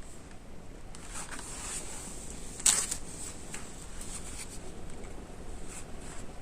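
Faint steady hiss with scattered light clicks, and one sharp click about two and a half seconds in.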